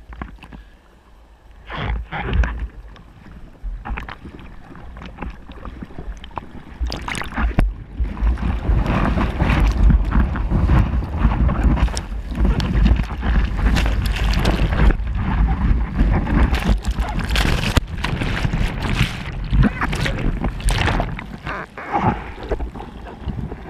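Sea water sloshing and splashing around a waterproof action camera at the surface, with a few separate splashes at first. About eight seconds in a long, loud rush of churning surf water with rumbling buffeting on the microphone sets in, easing off near the end.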